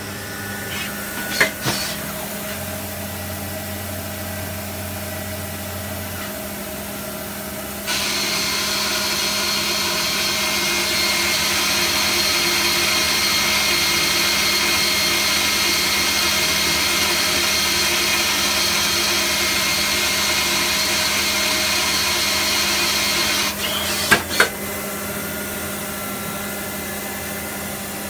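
Citizen K12E VIIP Swiss-type CNC lathe running through a machining cycle. A steady hum with a few clicks, then from about eight seconds in a louder steady rushing sound with a high whine for about fifteen seconds. It ends in a couple of sharp clicks, and the quieter hum carries on.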